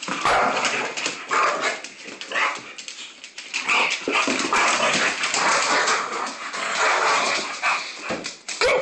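Two dogs play-fighting, barking in rapid, irregular bursts.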